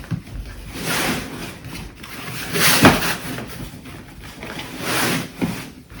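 Rustling and rubbing of the rolled-up sleeping pad's fabric as it is handled, coming in several swells, with a sharp knock about three seconds in.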